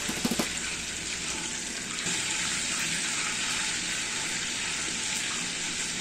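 Corn-flour empanadas deep-frying in hot oil: a steady sizzle, with a few quick clinks near the start.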